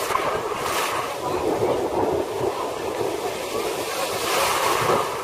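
Heavy, stormy sea surf breaking and washing around people wading in it, with a wave crashing in close about four seconds in. Wind buffets the microphone.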